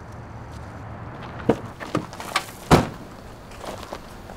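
A handful of sharp knocks, the loudest nearly three seconds in, over a steady low rumble.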